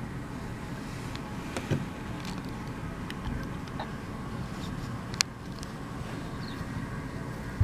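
Steady low outdoor rumble, with a few short clicks and taps scattered through it, the sharpest about five seconds in.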